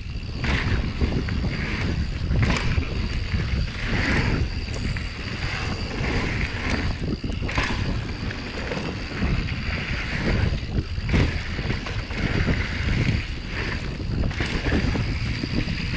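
Wind buffeting the microphone while riding a Yeti SB150 mountain bike, with the tyres rolling over a dirt trail; the hiss rises and falls every second or so.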